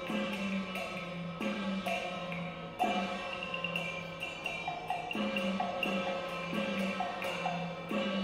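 Instrumental interlude of Cantonese opera accompaniment music: a melody over regular struck notes and wood-block-like percussion, with no singing.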